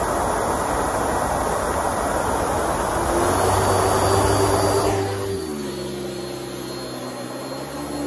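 Airway Sanitizor Mark V vacuum cleaner running on carpet: a loud rush of suction air, which drops away about five seconds in to a quieter, steady motor hum with a faint high whine.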